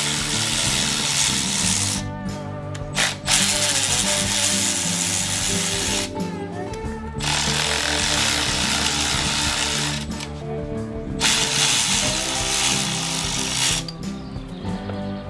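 A power tool run in four bursts of about three seconds each, with short pauses between, over background music.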